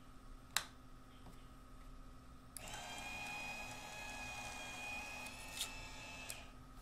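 A sharp click about half a second in, then the electric drive motor of a Swift Card Cutter starts up and runs for a few seconds with a steady whine as it pulls a sheet of business cards through the slitter blades, stopping with a couple of clicks near the end.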